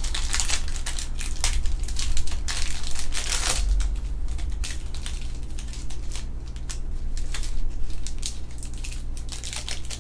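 Foil wrappers of trading-card packs crinkling and tearing as they are ripped open and handled, in a dense crackle of short rustles over a steady low hum.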